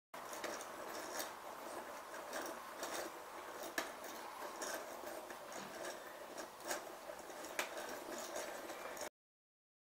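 Small wooden automaton with wooden gears and a lever, worked by hand: irregular light wooden clicks and knocks over a steady hiss, stopping abruptly near the end.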